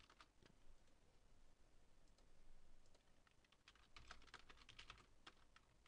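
Faint computer keyboard typing: scattered key clicks, thickest about four seconds in.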